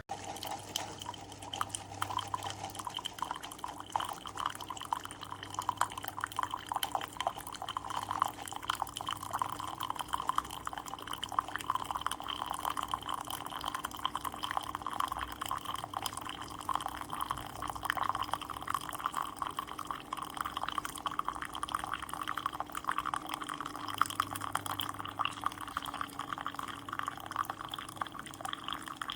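Keurig K-Express single-serve coffee maker brewing: hot liquid streaming and spattering steadily into a cup, over a steady low hum from the machine.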